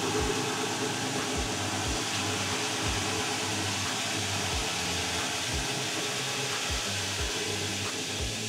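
Battery-electric ride-on floor sweeper running while it sweeps, its suction fan and rotating brushes making a steady whirring rush, with soft low thumps about once a second.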